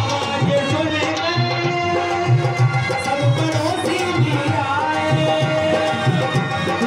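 Indian folk dance music with a steady hand-drum beat under a melody with some singing.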